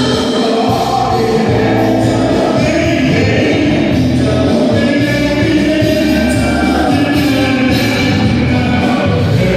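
Music with singing voices over a steady, pulsing bass.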